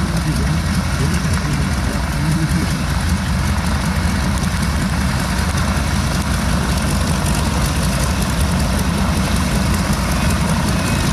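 The nine-cylinder Pratt & Whitney R-1340 Wasp radial engines of two North American AT-6D Texans running steadily at low power as the aircraft taxi, a deep, even engine sound.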